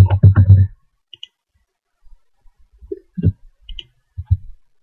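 Computer mouse clicking a few times: short sharp ticks with some soft low thumps, spaced out over a few seconds.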